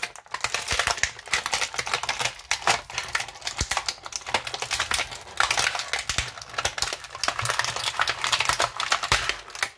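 Thin clear plastic bag crinkling and crackling in a dense run of sharp clicks as hands work an action figure out of it.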